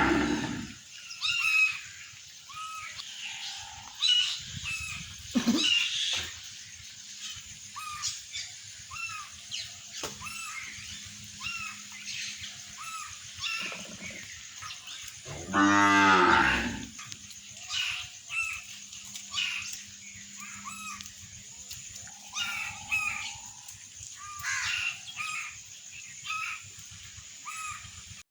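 Cattle lowing: one long, loud moo about halfway through and the end of another right at the start. Over them, small birds chirp again and again.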